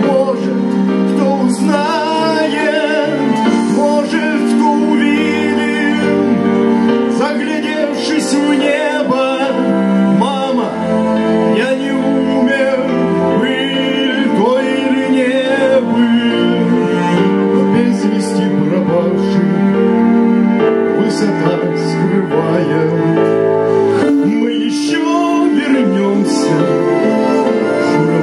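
A song: a man singing into a microphone over musical accompaniment, steady throughout.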